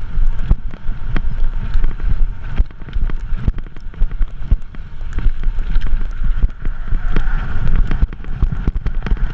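Mountain bike descending a dirt singletrack: wind buffeting the microphone in heavy gusts, with frequent clicks and knocks as the bike rattles over rough ground.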